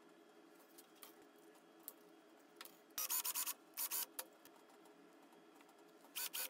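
Cordless drill running in short bursts with a high motor whine: two quick bursts about three seconds in while drilling into a pine block, and another near the end while driving into a metal strap on the block.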